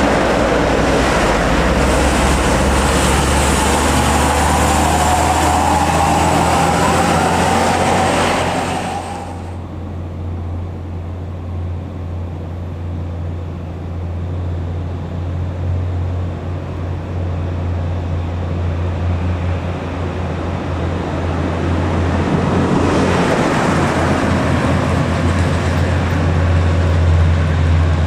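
Diesel engines of heavy trucks working hard up a steep grade, with a deep steady drone underneath. A loud truck passing dominates the first nine seconds and drops away abruptly. A quieter low drone follows, then another truck grows louder near the end.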